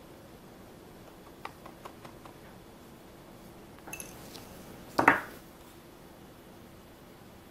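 Small clicks and taps of a brush and hands on a clear plastic chocolate mould tray and a bowl, with a brief ringing clink about four seconds in and a louder sharp knock about a second later.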